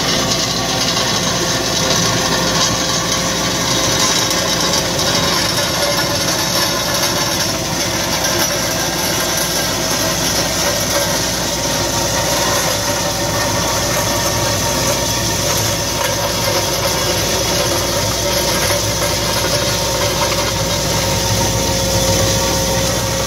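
Cat 262D skid-steer loader's diesel engine running steadily under load, with the hydraulic rake attachment grinding through gravel and a constant rattle of stones.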